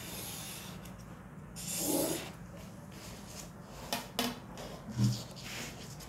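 Pen and clear plastic ruler working on a sheet of chart paper on a table. There is a rubbing, sliding sound about two seconds in, then two light clicks and a dull knock as the ruler is set down and picked up again.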